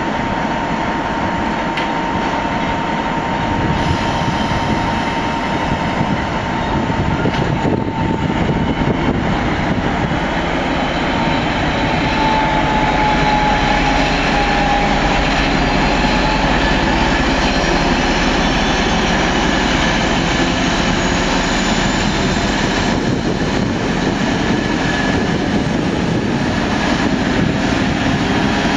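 ZSSK Class 750 diesel locomotive pulling away with a loco-hauled passenger train. Its diesel engine runs steadily under power and grows a little louder as the train gathers speed, with the rumble of the train rolling along the track.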